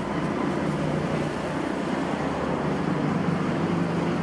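Steady background rumble and hiss, with no distinct single sounds.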